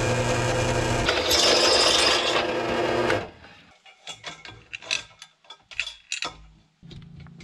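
Benchtop drill press running and boring through a steel square tube, the bit cutting loudest in the middle, until it stops about three seconds in. Then irregular clicks and clinks as a hand winch is handled and set against the steel tube.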